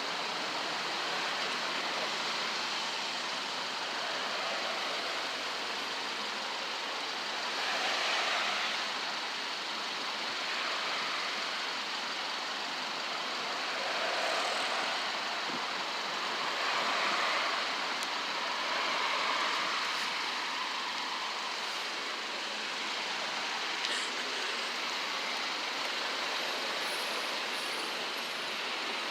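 Derecho storm wind blowing hard, a steady rushing noise that swells in gusts several times.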